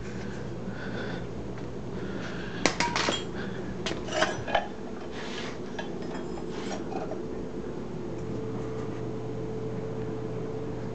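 Light metallic clinks and clatters in two short clusters, about two and a half and four seconds in, a few fainter ones after, over a steady low hum.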